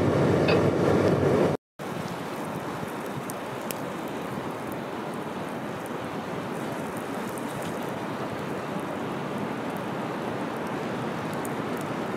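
Blizzard wind blowing steadily, an even rushing noise with faint ticks of snow. Before it, a louder rumble of vehicle road noise cuts off abruptly a little under two seconds in.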